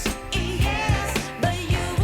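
Pop song with a female singing voice over a steady drum beat.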